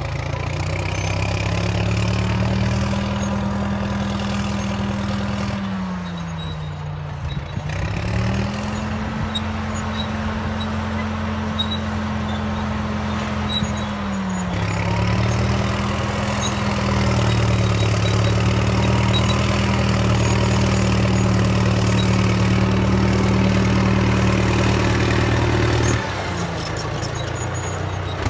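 Caterpillar D7 bulldozer's diesel engine running under load while it rolls brush with a root rake. The engine note sags twice, about six and fourteen seconds in, and picks back up each time.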